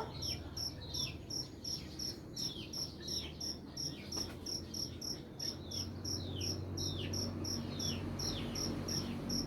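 Crickets chirping in an even pulse, about three to four chirps a second, with repeated short falling chirps over them and a faint low hum underneath.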